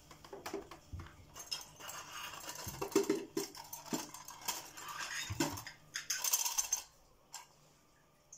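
Handling noise: small objects clinking and rustling as they are moved about, with scattered knocks and clicks.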